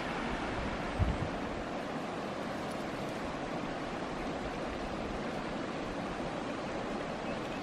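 Steady rush of a shallow river running over a stony bed, with a brief low thump about a second in.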